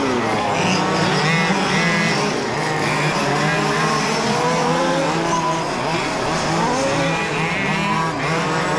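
Several large-scale radio-controlled F1 race cars running laps together, their motors revving up and down as they accelerate, brake and pass.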